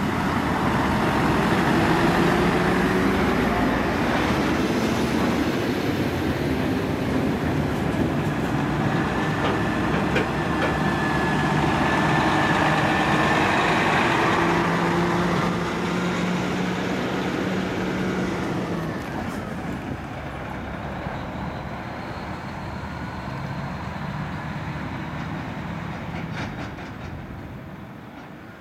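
Heavy diesel trucks driving past one after another: a Scania R580 tractor unit hauling an empty low-bed trailer, then a flatbed truck. Their engines run and their tyres roll on the road. The sound swells as each truck passes close, and grows quieter in the last few seconds as they drive away.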